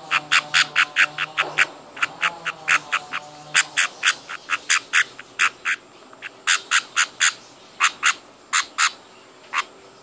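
Baby budgie chick's begging calls while being syringe-fed formula: short sharp chirps, many in pairs, several a second, stopping just before the end. A faint low hum sits under the first few seconds.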